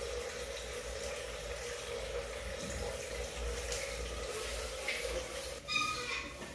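Water draining from the valve at the bottom of a water tank, a steady rush of running water.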